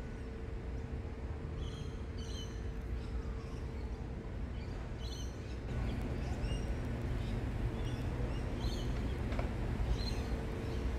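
Birds chirping in short, high calls, several times over, above a steady low background rumble that grows louder about halfway through.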